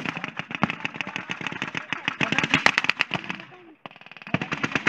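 Blank-firing guns in a mock battle: rapid, irregular shots and bursts, several a second, crackling on and off, with shouting voices among them. The sound drops out briefly about four seconds in, then the firing resumes.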